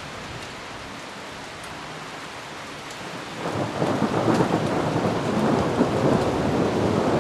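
Steady rain falling, then about three and a half seconds in a loud, deep rumble of thunder builds and keeps rolling.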